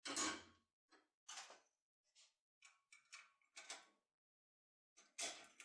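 Lock pick working inside a budget Chinese safe lock: a series of short metallic scrapes and clicks, about eight in five seconds, the loudest at the very start.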